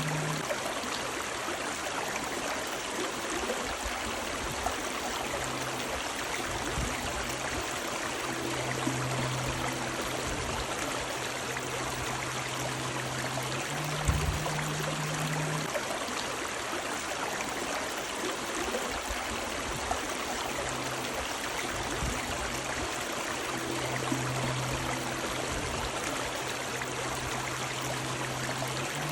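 River water running and rushing steadily over rocks, a dense, even wash of sound. A faint low hum comes and goes under it, and there is a brief low thump about halfway through.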